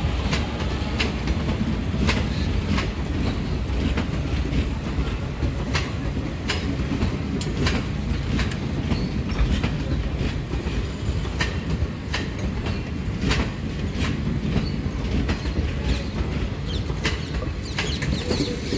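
Passenger coaches of an express train rolling past close by: a steady rumble of wheels on rail with a repeated clickety-clack as the wheelsets pass over rail joints.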